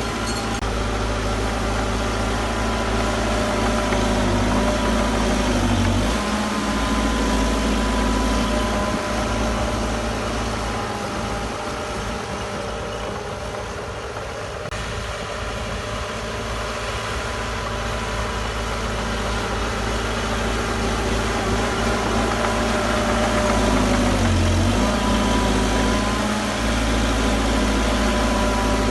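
Heavy diesel engine of earthmoving machinery running steadily, its note shifting about six seconds in and again near the end.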